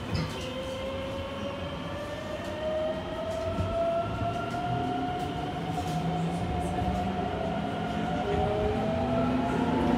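Mitsubishi GTO-VVVF inverter and traction motors of a Keikyu 1500 series train whining as the train accelerates away from a station, heard from inside the passenger car. After a short knock at the start, several tones rise slowly in pitch and grow louder, and near the end the pitch steps down to a new, lower tone.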